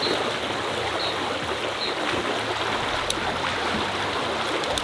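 Small rocky creek running: a steady rush of water over boulders.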